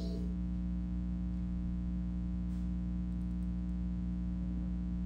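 Steady electrical mains hum, a constant low buzz with no other sound over it.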